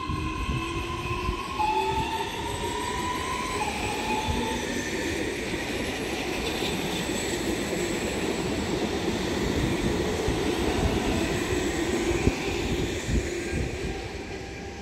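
Hitachi Rock ETR521 double-deck electric multiple unit pulling out and gathering speed past: its traction motors whine in stepping, rising tones for the first few seconds. Then comes the steady rumble and clatter of wheels over the rails as the cars go by, fading near the end.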